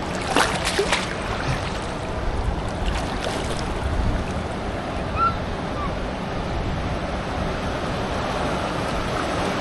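Ocean surf washing steadily, with wind on the microphone.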